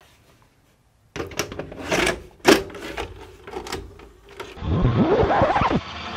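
VCR mechanism clicking and clunking several times from about a second in, as it switches on and loads a tape. Near the end this gives way to noisy tape sound that wavers and slides in pitch as playback starts.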